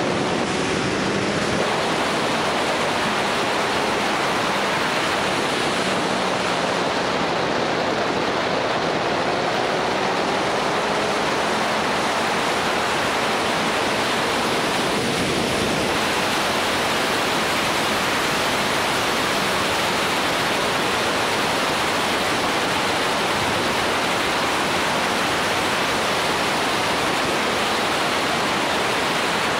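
Steady rush of wind buffeting the bike-mounted 360 camera's microphones at riding speed. Underneath it, a faint motorcycle engine note rises slowly in pitch over the first ten seconds or so and then sinks into the wind.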